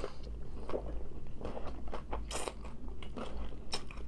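Crunchy hard taco shells being bitten and chewed: irregular crisp crunches, the loudest a little past halfway.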